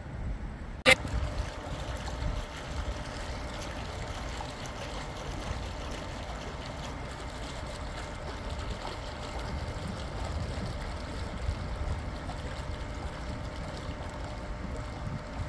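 Steady rushing of storm wind, with gusts buffeting the microphone. A single sharp click about a second in is the loudest moment.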